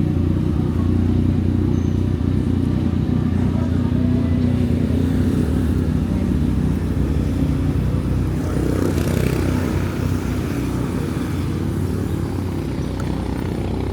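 Motor vehicle engine running steadily, a constant low drone.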